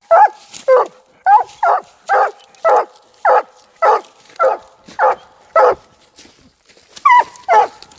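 Hunting hound barking at the tree, the steady chop of a dog with game treed: about two barks a second, with a pause of about a second near the end before it starts again.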